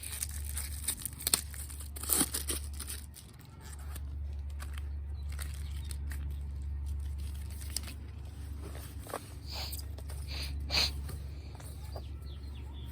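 Packaging being torn and crinkled as a new bicycle inner tube is unwrapped, in scattered rustles and handling clicks over a steady low hum.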